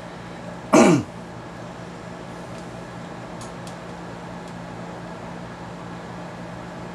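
Steady machine hum with a low tone running through it. About a second in, a short voice-like sound falling in pitch, and later a couple of faint ticks.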